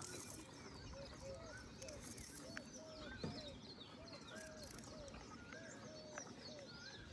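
Several birds calling over one another in short arched and hooked chirps, repeating every second or so, over a faint steady background hiss, with one sharp knock about three seconds in.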